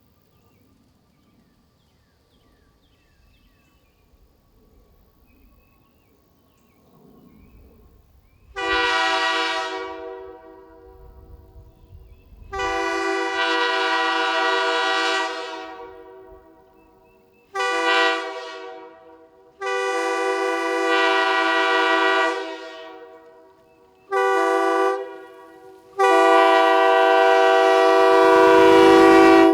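K3L three-chime PVC train horn, its chimes tuned to D#, F# and A#, fed from an air tank at 140 psi and blown from a golf cart. After some eight quiet seconds it sounds six loud chord blasts, short and long in turn, the last one long.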